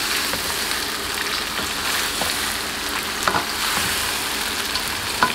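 Raw chicken pieces sizzling in hot oil and melted sheep tail fat in a karahi while being stirred in with a wooden spatula, a steady frying hiss with a few light knocks of the spatula against the pan.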